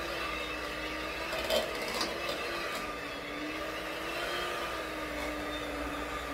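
Handheld electric mixer running with its beaters whipping mashed potatoes in a stainless steel pot: a steady motor whine that wavers slightly in pitch, with a couple of light clicks about one and a half and two seconds in.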